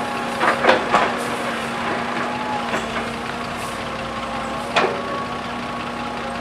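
Heavy diesel machinery running steadily with a droning hum, broken by three quick sharp clanks about half a second in and another just before five seconds.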